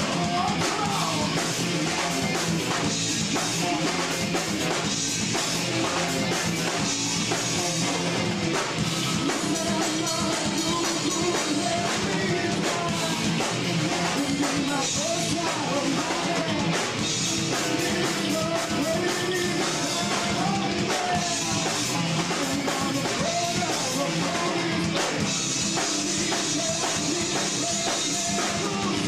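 Rock band playing live at a steady level: drum kit, electric guitars and a singer's voice through the PA.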